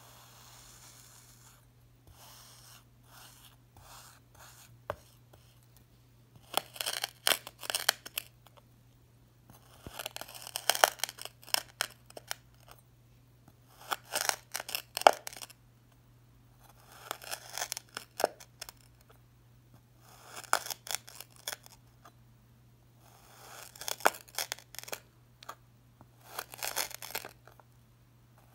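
A metal knife blade slicing down through a block of packed crunchy sand. Each cut is a cluster of crisp crunching and crackling, about seven cuts a few seconds apart, after some fainter scrapes in the first few seconds.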